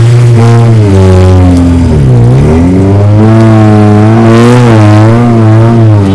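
Vehicle engine revving hard, its pitch wavering and dipping sharply about two seconds in before climbing back.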